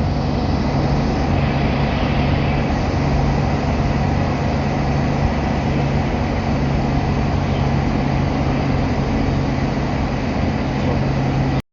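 Air source heat pump outdoor unit running at top compressor frequency: the fast-turning fan's steady rush of air over a steady low hum. It cuts off suddenly near the end.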